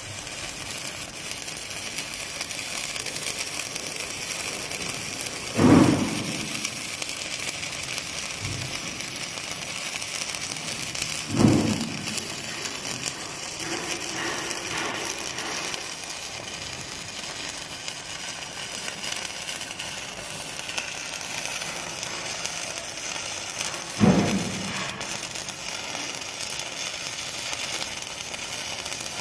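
Electric arc welding: a steady crackling hiss from the arc, with three loud dull thumps spaced out across it, about six, eleven and twenty-four seconds in.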